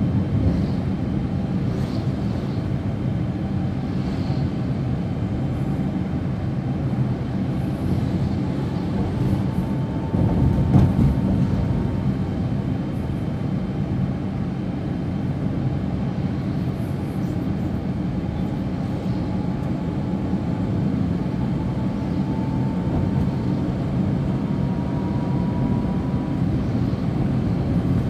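Small car, a Daihatsu Ayla, driving through city traffic, heard from inside the cabin: a steady low rumble of engine and tyres. There is a single thump about eleven seconds in.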